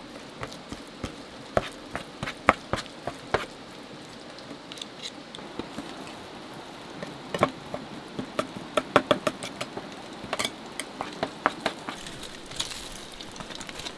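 Metal spoon clinking and scraping against a stainless steel bowl while stirring a thick paste: many irregular sharp clicks over a steady hiss. Near the end, aluminium foil crinkles as it is handled.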